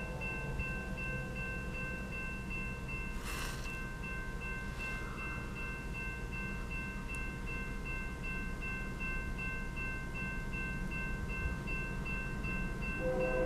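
Railroad crossing warning bell ringing with an even, repeating ding while the crossing signals are active. Near the end a louder sound of several steady tones joins it.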